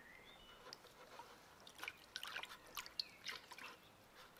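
Faint splashing and dripping of water in a plastic bucket as hands stir and dip into the paint-filmed water, a cluster of small splashes and drips through the middle of the stretch.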